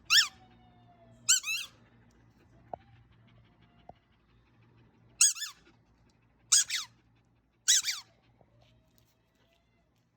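A dog's squeaky toy ball, squeezed in the German Shepherd's jaws, squeaks in five short bursts of a few quick squeaks each. The bursts are spread over about eight seconds.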